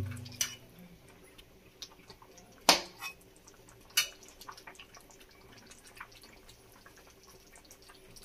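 A metal ladle knocking and clinking against an iron kadhai a few times, the loudest knocks nearly three and four seconds in, over faint scattered ticks and pops from the simmering curry gravy.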